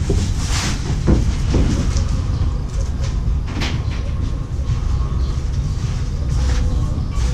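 Footsteps knocking on the planks of a wooden pier deck over a steady low rumble.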